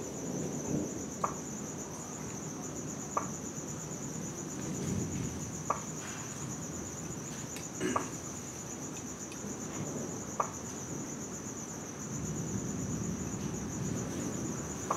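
Steady, pulsing high-pitched chirping of night insects, with distant thunder rumbling low underneath, swelling around the middle and again over the last few seconds. A few short, sharp ticks come every couple of seconds.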